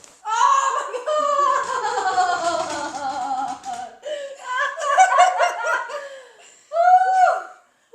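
A person's loud, wordless emotional outburst after a chiropractic adjustment: a long wavering cry sliding down in pitch, then choppy bursts of laughter, and a short rising-and-falling cry near the end.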